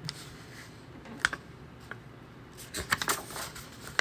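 Paper pages of a picture book rustling and crackling as they are handled and pressed flat. There is a single sharp crackle about a second in and a cluster of crackles around three seconds.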